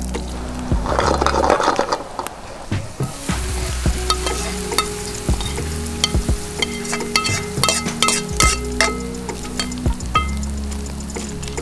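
Sliced shallots sizzling as they fry in oil in a pan, with a metal spoon stirring and scraping the pan, loudest about one to two seconds in. Later come sharp clicks and taps of the spoon against the pan as the fried shallots and oil are scraped out into a bowl of chopped spring onions.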